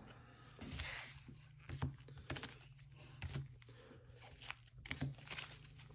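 Quiet handling of trading-card packaging: foil card packs and cardboard box pieces crinkling and rustling, with scattered light taps and knocks as they are moved and set down.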